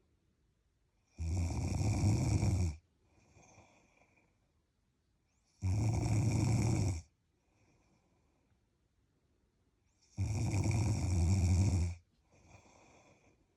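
A sleeping person snoring: three loud snores, each about a second and a half long and roughly four seconds apart, with a faint breath after the first and last.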